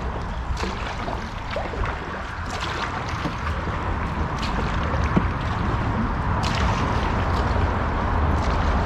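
Kayak paddle strokes, the blades splashing and dripping about every two seconds, with water sloshing around the folding kayak's hull over a steady low rumble.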